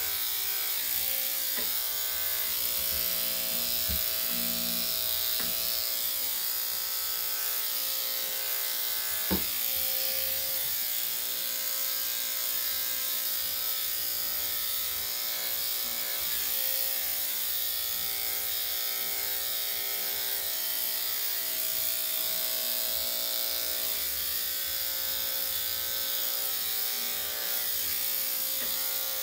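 Corded electric dog clippers fitted with a 3/4 blade running steadily as they clip a Shih-Tzu's body coat, with one sharp click about nine seconds in.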